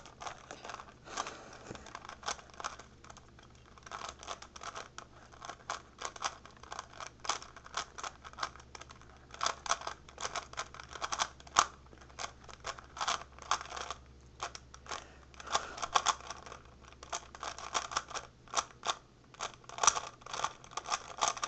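3x3 speed cube being turned rapidly during a solve: the plastic layers clatter and click in quick runs of turns with brief pauses between them.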